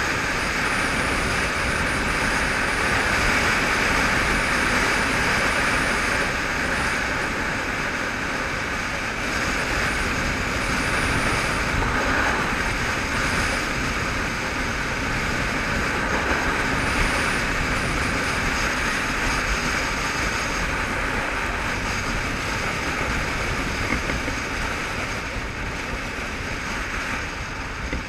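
Motorcycle cruising at steady road speed, heard from a helmet-mounted camera: a steady rush of wind and road noise over the engine. It eases off slightly near the end.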